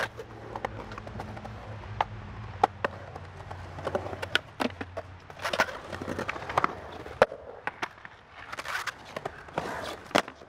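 Skateboard wheels rolling on a concrete bowl with a low rumble. Sharp clacks are heard throughout as the board and trucks knock against the concrete and coping. The rolling rumble cuts off abruptly at a loud clack about seven seconds in.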